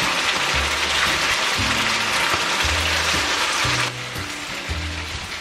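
Pork belly in gochujang sauce sizzling and being stir-fried in a frying pan, a dense hiss that drops suddenly to a quieter sizzle about four seconds in. Background music with a bass line plays throughout.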